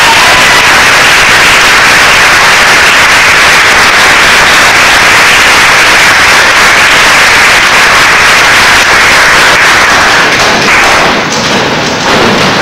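Audience applauding loudly at the end of a musical number, easing off near the end.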